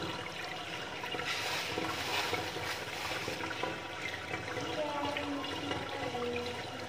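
Water pouring steadily from a garden hose and splashing onto a tiled floor.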